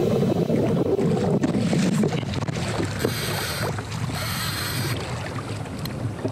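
Wind buffeting the microphone over water sloshing against a kayak hull on open, choppy sea, with two short hissing rushes of water about three and four seconds in.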